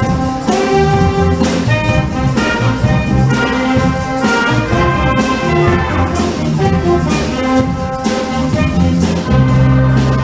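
Middle school band playing live, with brass such as trumpets and trombones carrying held notes over percussion hits.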